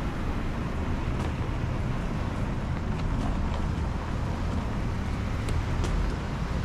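Outdoor street ambience: a steady low rumble of traffic, with a few faint ticks.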